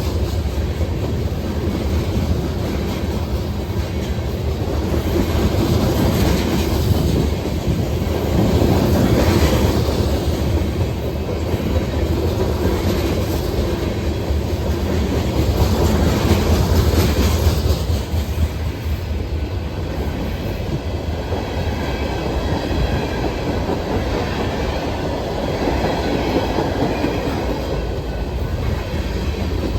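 Cars of a Norfolk Southern train rolling past close by, a steady heavy rumble with wheel clatter over the rails, swelling and easing slightly as the cars go by.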